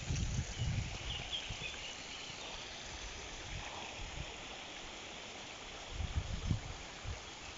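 Steady hiss of fountain water splashing into its basin, with a few low bumps in the first second and again about six seconds in.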